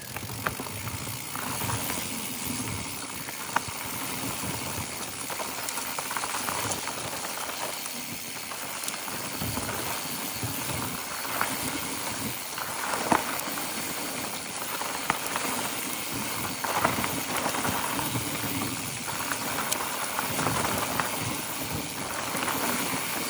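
Mountain bike with knobby tyres rolling down a dry, dusty dirt singletrack: a steady rushing noise of the tyres on loose dirt and gravel, with scattered sharp clicks and knocks from the bike and small stones.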